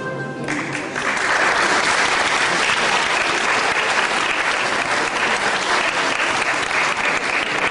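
A short stretch of music cuts off just after the start, and an audience breaks into applause about a second in, clapping steadily.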